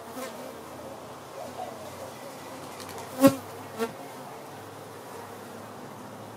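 Honeybees buzzing as they fly about the hive entrance, their wavering hum faint and steady. A little over three seconds in, a bee buzzes loudly past close to the microphone, and again about half a second later.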